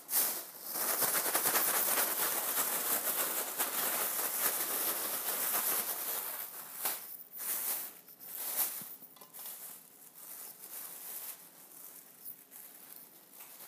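Plastic bag of panko breadcrumbs being shaken and rustled to coat a piece of chicken: a dense, crackling rustle for about the first six seconds, then quieter, intermittent rustles.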